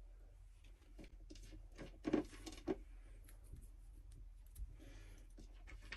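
Faint clicks and light taps as chopped pistachios are sprinkled by hand onto carrot halwa on a china plate, with a louder cluster of taps about two seconds in, over a low steady hum.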